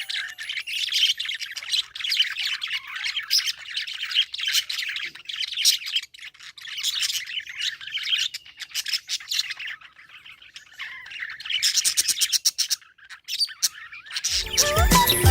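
Budgerigars chirping steadily in quick, high calls, with a run of rapid repeated chirps near the end; music comes in about a second before the end.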